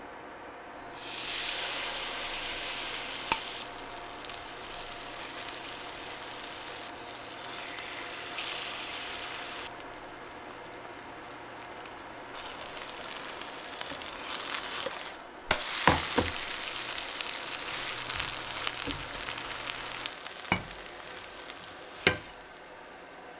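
Kimchi pancake batter shallow-frying in plenty of oil in a non-stick pan: a steady sizzle that starts about a second in. Several sharp clicks come in the second half, one of them near the end.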